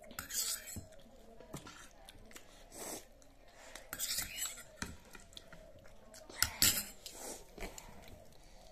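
Spoons and forks clicking and scraping against plates while noodles are eaten, in scattered short knocks with a few brief louder scrapes.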